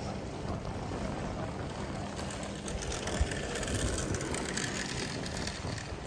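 Wind buffeting the microphone while riding a bicycle, a steady low rumble mixed with tyre noise on the paving stones. A faint crackle rises in the middle.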